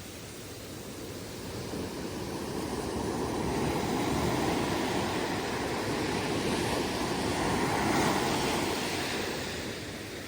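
Ocean surf breaking and washing up a beach, the rushing noise swelling over several seconds and easing off near the end.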